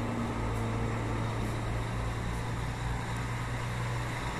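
Truck engine idling: a steady low hum with an even noise underneath.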